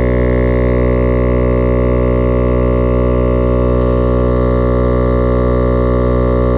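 Viair 88P portable 12-volt tire compressor running steadily under load as it pumps up a truck tire, a constant droning hum.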